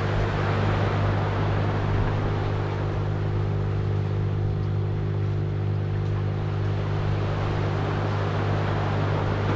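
A running engine's steady low drone that does not change in pitch, with an even hiss of wind and water behind it.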